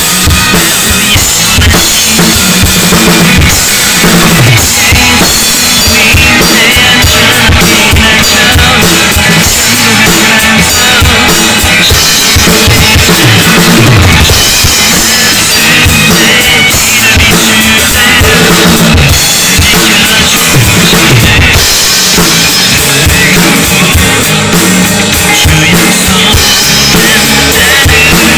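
Acoustic drum kit played without a break in a full groove: bass drum, snare and Zildjian K cymbals.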